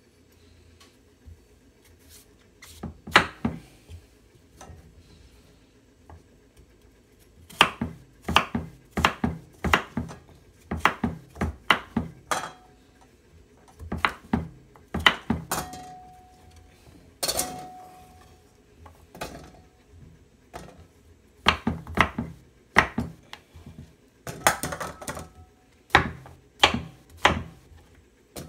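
Kitchen knife slicing a peeled bottle gourd (upo) on a cutting board: sharp knocks of the blade striking the board in irregular quick runs with short pauses, starting about three seconds in.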